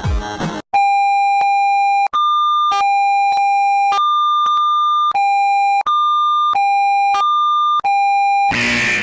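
Electronic alert tone, buzzy like a square wave, switching back and forth between a low and a higher pitch in uneven steps of about half a second to a second and a half. It cuts in after a brief snatch of electronic music and gives way to a loud noisy sound near the end.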